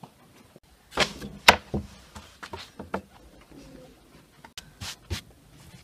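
Several sharp knocks and clicks of things being handled, the loudest two about a second and a second and a half in, two more near the end.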